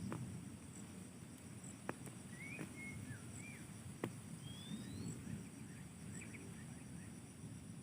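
Steady high-pitched insect drone with a few short bird chirps and whistles in the middle, one of them a rising whistle. Three sharp clicks and a low rumble sit underneath.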